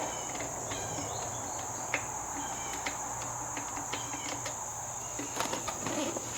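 Steady high-pitched cricket chirring in the background, with scattered clicks, light knocks and short runs of rapid clicks from hand work taking the stock motorcycle seat off.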